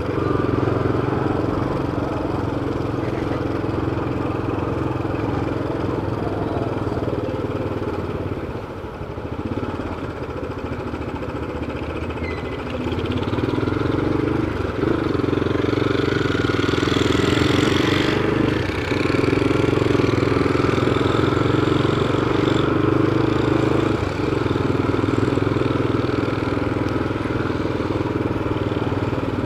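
Motorcycle engine running as the bike rides at low speed through town streets, with its sound dropping about eight seconds in and building again from about thirteen seconds as it picks up speed.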